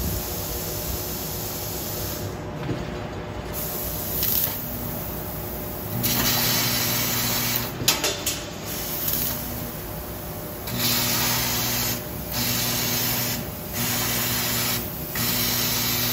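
Fiber laser cutting sheet metal with compressed air as the assist gas: a loud hiss of air from the cutting head, starting and stopping with each cut, with a low hum during each stretch of cutting. There is one sharp crack about eight seconds in.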